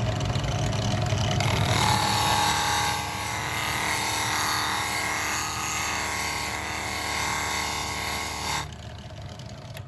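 Rikon drill press motor running a 120-grit sanding mop, its abrasive flaps brushing against a laser-engraved plywood disc with a steady hiss over the motor hum. The sanding hiss sets in about a second and a half in and stops near the end, leaving the motor sound fading away.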